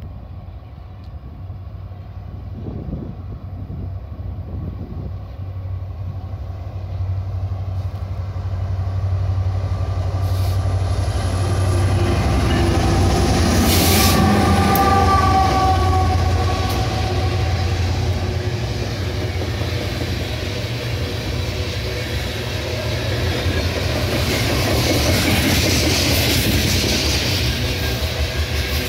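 A BNSF diesel locomotive leading a coal train approaches and passes: its low engine drone builds to its loudest as it goes by about halfway through. After that the coal hopper cars' steel wheels rumble and clatter along the rails.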